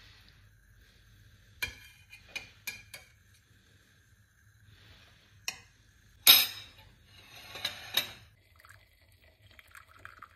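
Dishes and cutlery being cleared and handled: a scatter of sharp clinks and knocks, the loudest clatter about six seconds in, followed by a short noisy stretch. A faint, steady low hum runs underneath.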